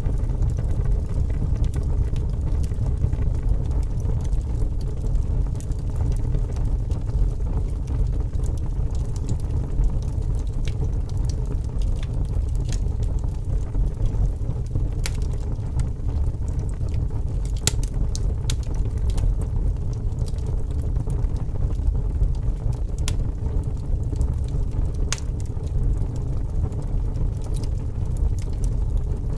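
Wood fire burning in a fireplace: a steady low rumble of flames with irregular sharp crackles and pops, a few of them louder.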